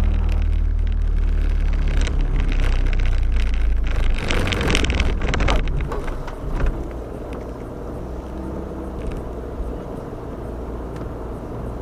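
Steady low rumble of a vehicle underway, heavy for the first six seconds, with a louder noisy rush around four to six seconds in, then settling to a lighter, steady hum.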